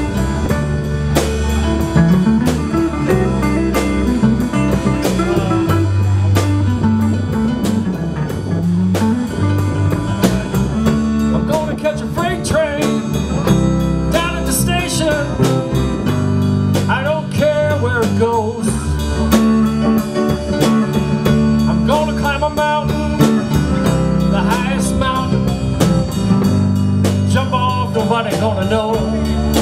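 Live blues band playing an instrumental passage: electric guitar with bent notes over a moving bass line and steady drum kit.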